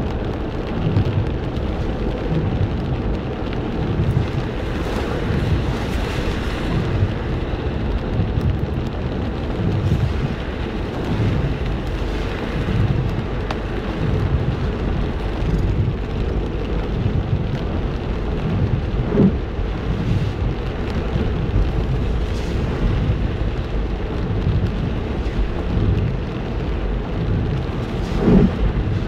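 Steady heavy rain with a low rumble underneath.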